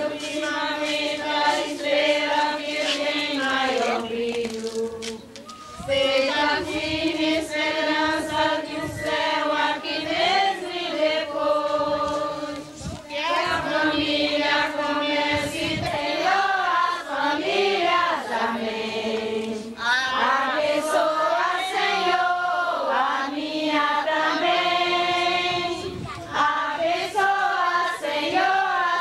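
A congregation of voices singing a religious song together in long held phrases, with short pauses between phrases.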